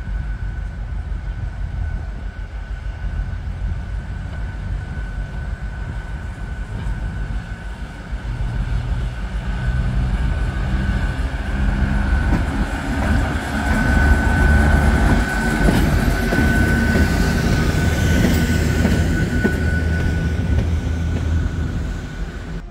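M62-series diesel locomotive running under power as it approaches and passes close by, its engine rumble swelling to a peak in the middle and easing off near the end, with a steady high whine throughout.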